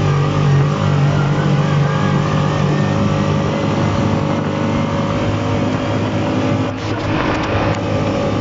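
Yamaha off-road vehicle's engine running at a steady pitch as it drives along a dirt track, with a brief cluster of knocks and rattles about seven seconds in.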